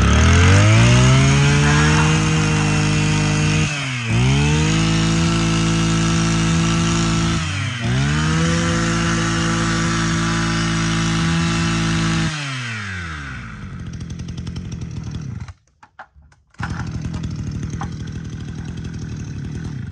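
Echo Kioritz 23cc two-stroke brush cutter engine revved up to high speed and held there, dipping briefly twice, then dropping back toward idle about twelve seconds in. After a short break it runs on more quietly.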